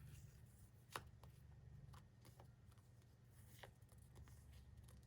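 Near silence with a few faint, short clicks and rustles of paper stickers being handled, the clearest about a second in.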